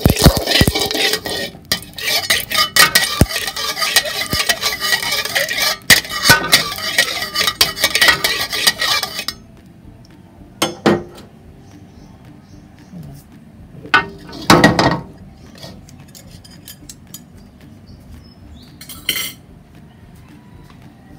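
Metal spatula scraping and clanking against a wok, busy for about nine seconds, then only a few short scrapes.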